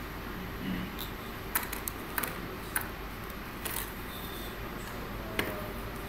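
Light plastic clicks and taps as a clear acrylic coil frame is handled and shifted on its bench stand, about six scattered clicks, over a steady low hum.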